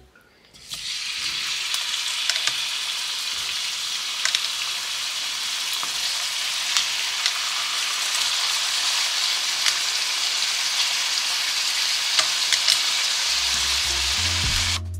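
Cubes of raw meat sizzling in a hot frying pan: a steady hiss with scattered small pops and crackles, starting about half a second in as the first pieces go into the pan.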